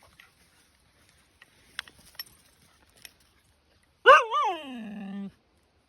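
Siberian husky 'talking' back: one pitched call about four seconds in that wavers up and down twice, then slides down and is held low for about a second before stopping. A few faint clicks come before it.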